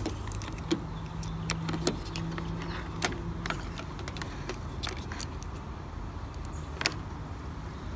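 Light clicks and taps of multimeter test-lead probes and plastic connector clips being handled and pushed together, scattered irregularly over a steady low hum.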